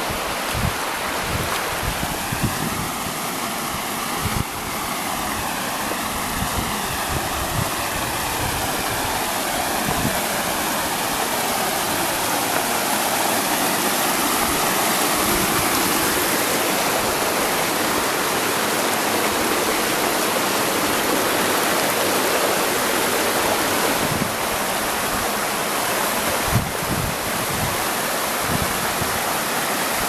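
Shallow rocky stream running and splashing over rock ledges and small cascades, a steady rush that grows a little louder partway through.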